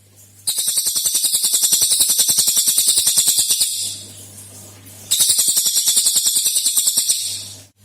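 Cililin songbird giving its fast rattling 'tembakan' burst: a long machine-gun-like trill of rapid sharp notes, about a dozen a second, breaking off briefly near the middle and then starting again for a second long run. A faint low hum is heard in the pause.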